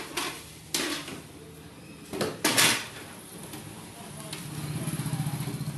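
Hard parts and tools clattering and knocking on a wooden workbench, a few separate knocks with the loudest about two and a half seconds in. A low, rapidly pulsing buzz starts about four and a half seconds in.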